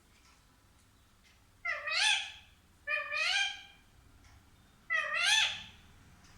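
A pet parrot giving three drawn-out meow-like calls, each rising and then falling in pitch, with short pauses between them.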